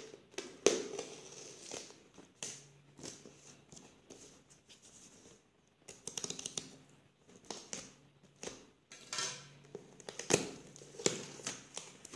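A small knife blade slitting packing tape on a cardboard parcel, with scraping, tapping and crinkling of tape and cardboard as the box is worked open. The sounds come in irregular strokes with a short pause about halfway through.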